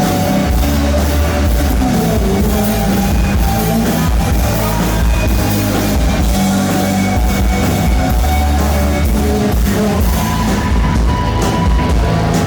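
Live rock band playing loudly, recorded through a blown cellphone microphone, so the music comes through distorted, with heavy, overloaded bass.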